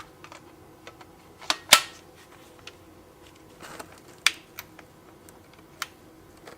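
Scattered clicks and knocks of a hard-plastic cordless reciprocating saw being handled, with a short rustle; the sharpest knock comes a little under two seconds in.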